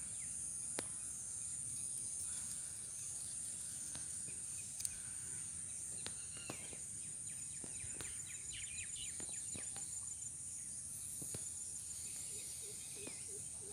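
A steady, high-pitched drone of insects such as crickets, with a few short bird chirps scattered through it and occasional faint clicks.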